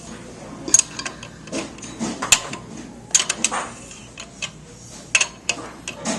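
Irregular metallic clicks and clinks from tightening the mounting chain of a pipe clamp, a few sharp ticks a second with uneven spacing.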